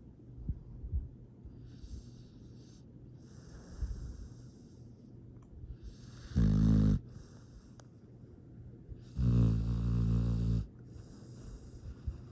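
A sleeping pet snoring: quiet breathing, then two loud, low-pitched snores, the second longer than the first.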